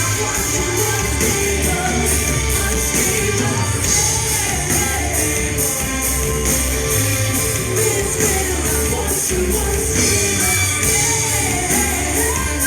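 Live rock band playing loud and steady: distorted guitars, bass and drums with crashing cymbals, in a large hall.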